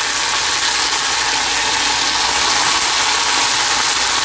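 Onion, green capsicum and fried brinjal pieces sizzling in hot oil in a wok as a steady hiss.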